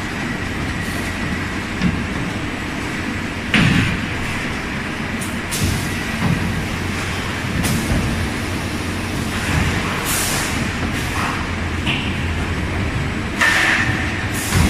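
Multi-blade panel rip saw line running: a steady machine din with occasional clunks and short hissing noises as MDF boards move along the roller conveyors.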